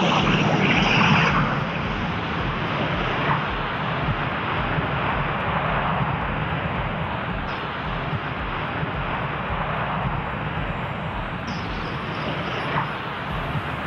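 Jet engines of the BAC TSR2 landing and rolling out. There is a loud, high whine at first, which eases after about a second and a half into a steady jet noise.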